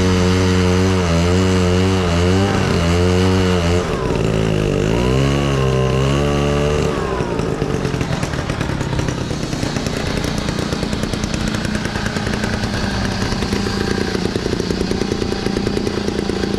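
Vintage chainsaw, a 72-year-old saw with a 9-foot bar, running at speed with its pitch wavering. After about seven seconds it drops to a slower, rougher beat of separate firing strokes.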